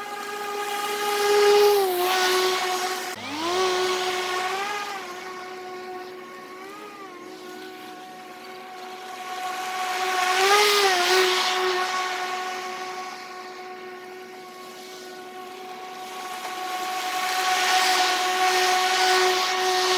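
Hart 40 V brushless battery push mower cutting grass: a steady high electric whine from the motor and blade whose pitch wavers as the load changes, with swells of rushing hiss from the cut grass, loudest as the mower comes near.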